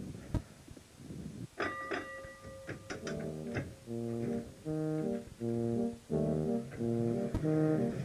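Brass music begins about three seconds in, a repeating pattern of short held chords. Before it come a few clicks and brief ringing tones.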